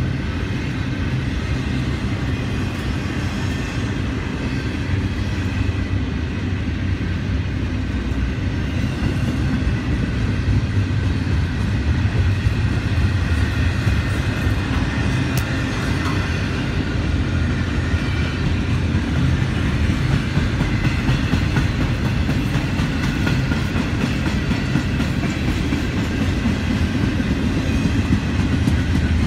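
Double-stack container freight train rolling past at close range: a steady, low rumble of its cars and wheels on the rails.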